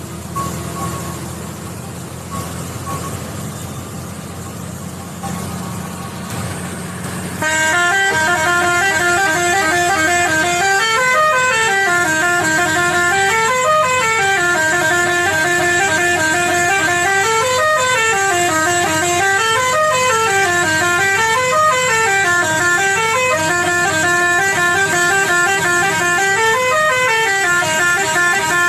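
Truck engine and road noise heard from the cab. About seven seconds in, a loud musical horn starts, playing a tune of stepped notes that climb and fall, and it repeats over and over, about once every two and a half seconds.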